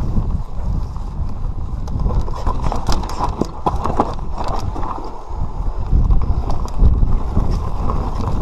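Enduro mountain bike riding down a rough dirt trail: a steady rumble of tyres on the ground with many sharp clicks and knocks as the bike rattles over the bumps, thickest a few seconds in.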